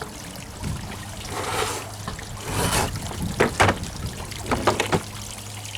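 Pond water splashing and pouring as gear is handled in it, with several sharp knocks about halfway through, over a steady low hum.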